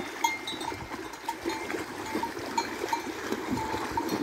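Cowbells on cattle clinking irregularly as the herd wades through a flooded river, over steady splashing and sloshing of the water around their legs.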